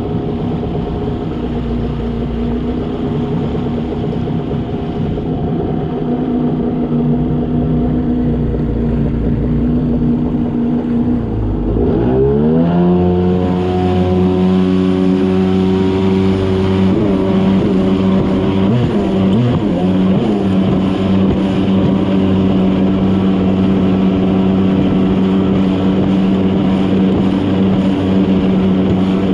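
Yamaha WaveRunner jet ski engine running under way, a steady engine drone. About twelve seconds in it revs up, the pitch rising, then holds a higher steady drone for the rest of the run.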